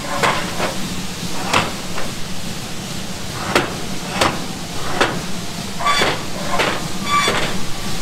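Irregular metal clanks and knocks, several with a short metallic ring, as the steel slide-gate control rods on a grain bin's unload sump are pushed and pulled by hand, over a steady low hum.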